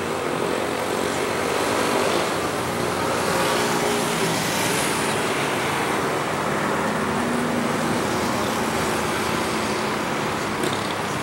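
Cessna Citation business jet's turbofan engines at takeoff power during the takeoff roll and liftoff, heard as a steady roar with a faint high whine.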